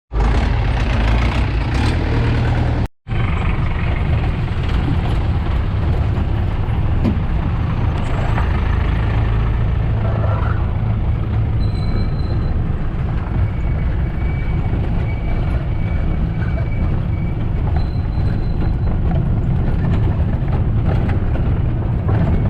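A vehicle engine running under way, with heavy wind rumble on the microphone. It cuts out for an instant about three seconds in.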